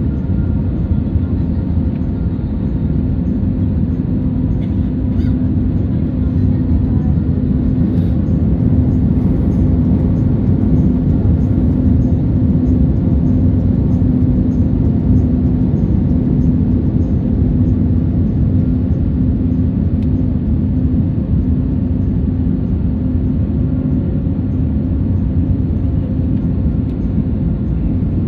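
Jet airliner cabin noise during the descent to land: a steady roar of engines and airflow heard from inside the cabin, with a steady low hum through it that fades near the end.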